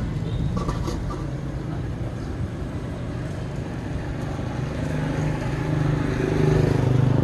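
A motor engine running steadily, with its low hum growing louder over the last two seconds. A couple of light knocks come in the first second.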